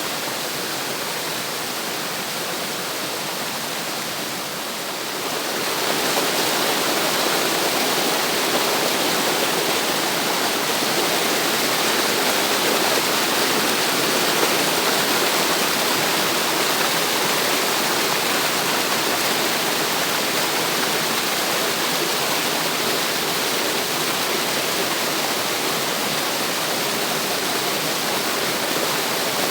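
Water rushing down a cascade, a steady rush that grows louder about five seconds in.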